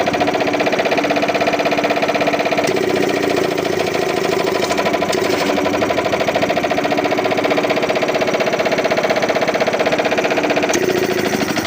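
A 20 HP air compressor with a 120 mm cylinder running steadily under test, a loud, fast, even mechanical pulsing.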